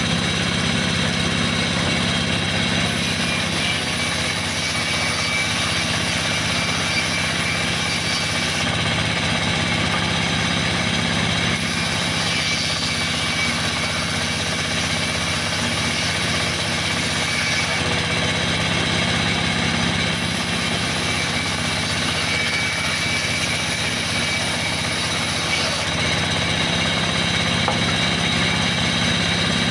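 Sawmill band saw running steadily while a log slab is pushed through its vertical blade and sawn into a board.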